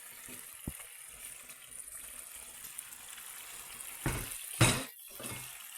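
Curry and tomato sauce cooking in a pan with a faint, steady sizzle, with a small click just under a second in. Near the end come two loud sudden bursts as diced bacon is tipped into the sauce.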